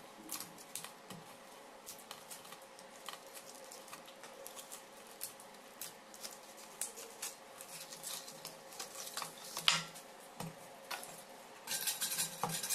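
Small clicks and crackles of a taped plastic mould strip being handled and peeled from a cast concrete disc. Near the end a louder, rapid scraping starts as a blade is worked against the concrete disc's edge.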